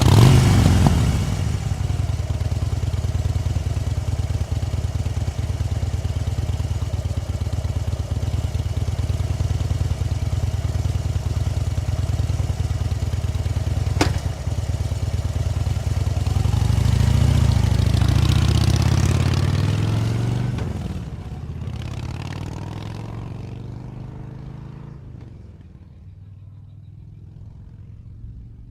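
A motor vehicle engine starts up abruptly and runs steadily. A single sharp click comes about halfway through. The engine revs up and down about two-thirds of the way in, then fades away.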